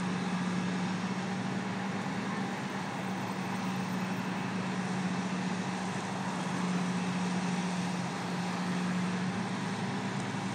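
A steady engine hum over street traffic noise, with a car driving past about six seconds in.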